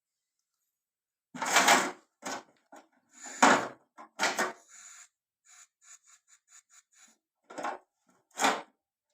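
A string of separate knocks and clatters, then a run of light clicks about three a second, then two more knocks near the end.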